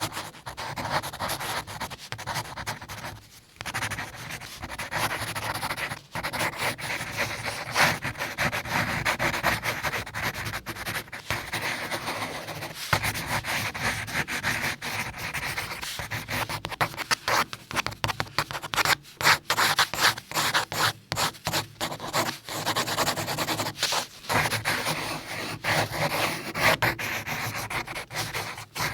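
Pencil scratching across paper in long drawing strokes, with brief pauses between them: a short break a few seconds in, and quicker, choppier strokes a little past the middle.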